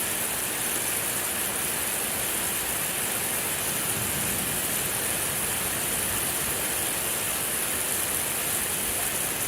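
A steady, unbroken hiss of noise, brightest in the high treble, with no distinct events in it.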